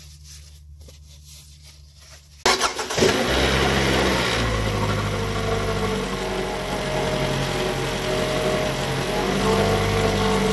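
A 2018 Toyota RAV4's four-cylinder engine starting about two and a half seconds in, then idling steadily. It is being run briefly after an oil change, before the oil level is rechecked.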